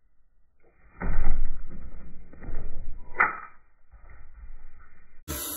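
Handling noise: rustling, swishing and bumping close to the microphone as the camera and feeding tongs are moved around the terrarium. The noise surges about a second in, with a short squeak after about three seconds and a crackle near the end.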